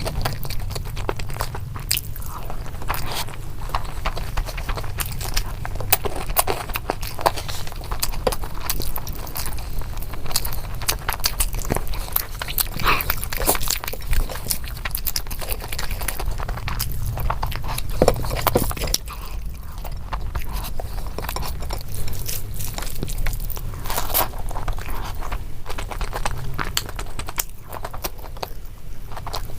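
A person chewing and biting food, with frequent short crunchy clicks of eating, over a steady low hum.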